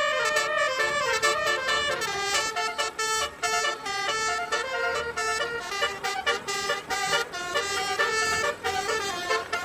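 Basuri telolet air horn, its several trumpets playing a melody in quick stepped notes.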